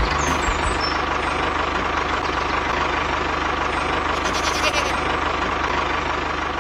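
A motor running steadily, a constant engine-like drone with a fast even pulse and a faint steady whine.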